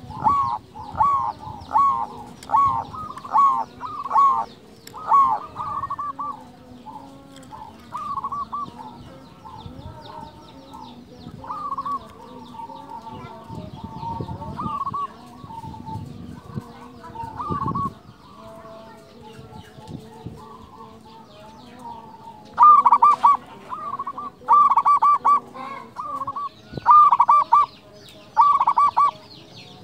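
Zebra dove (perkutut) singing its staccato cooing song, short trilled coo notes repeated in runs. A quick run of notes opens, the calls thin out in the middle, and a loud run starts again about three-quarters of the way through.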